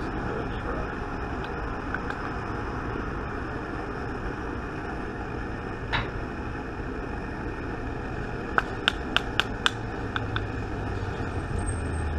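A bullet mold being tapped with a wooden stick while casting lead bullets. There is one sharp tap about halfway, then a quick run of about seven sharp taps in the second half, over a steady background hiss.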